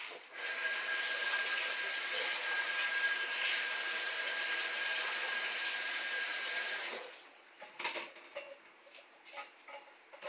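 Kitchen sink faucet running in a steady stream while hands are rinsed, with a thin steady whistle along with it, shutting off after about six and a half seconds. A few light clicks and knocks follow near the end.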